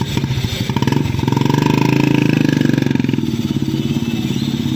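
A small two-wheeler engine running close by. It swells from about a second in and eases off a little after three seconds.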